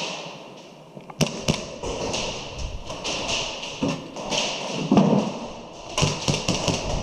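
A player's footsteps and scuffing on a concrete floor, with knocks and taps of kit. Scattered sharp clicks come through, with a quick cluster of them about six seconds in.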